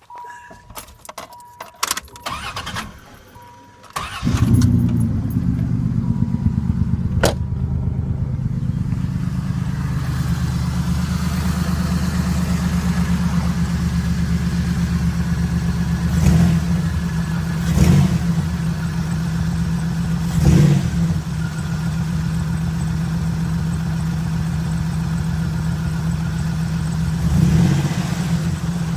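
A 1995 Dodge Spirit V6 is started. A steady chime tone and a few clicks come first, then the engine catches about four seconds in and settles into a steady idle, with four short swells in engine noise later on. It is running with a head gasket failure the owner has not yet pinned to one side, so both gaskets are to be replaced.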